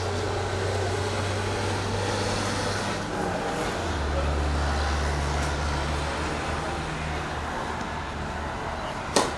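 Motor vehicle engine running with a steady low hum that drops in pitch about four seconds in, over a general outdoor background. A single sharp hit stands out near the end.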